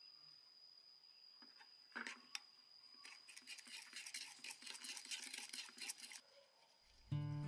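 Metal spoon stirring a sauce of sugar, garlic and chilli in a ceramic bowl: two sharp clinks about two seconds in, then about three seconds of rapid clinking and scraping against the bowl. Music comes in at the very end.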